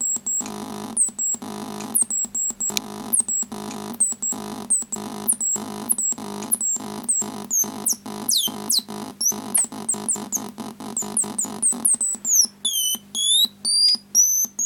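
Circuit-bent alarm clock's square-wave alarm chip glitching through a small 8-ohm test speaker. It makes a buzzy synth-like tone chopped into rapid stuttering pulses, with high chirps falling in pitch over it. Near the end the chirps drop lower and swoop down and back up.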